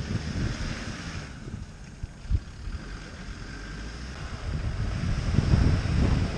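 Wind buffeting the microphone over the distant engine of a Land Rover Defender straining to tow a trailer through deep mud, the kind of pull that burns out a clutch. A brief thump a little over two seconds in; the wind grows louder toward the end.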